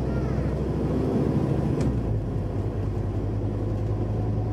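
Scania Enviro400 double-decker bus heard from inside the passenger saloon: the diesel engine drones steadily under road and tyre noise while cruising. About two seconds in there is a brief click and the engine note shifts.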